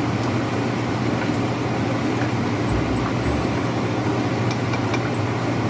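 Fish nuggets frying in hot oil in a pan: a steady sizzling hiss over a constant low motor hum, very noisy, with a few faint clicks of the tongs.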